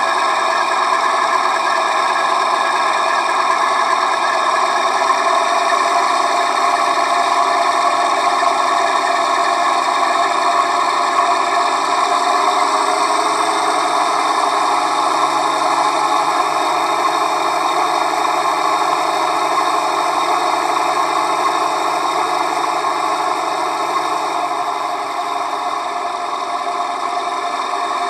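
Diesel engine sound from the onboard sound decoder of a brass Gauge 1 V 160 pre-series model locomotive, played in load mode through the model's speaker. The engine note rises about twelve seconds in and drops back near the end.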